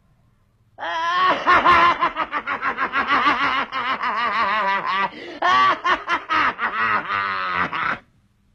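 A man's long, forced laugh, starting about a second in and running for some seven seconds in rapid pulses with a wavering pitch, with a short catch about halfway through.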